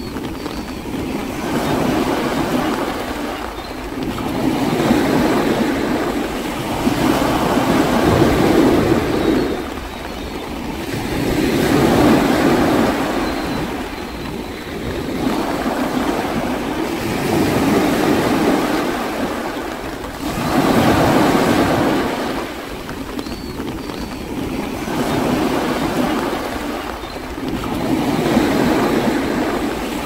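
Sea waves surging onto a shore: a rushing noise that swells and falls back every three to four seconds.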